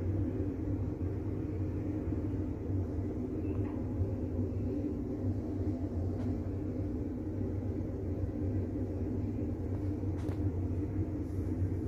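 A steady low rumble with a droning hum running evenly throughout, with a few faint clicks.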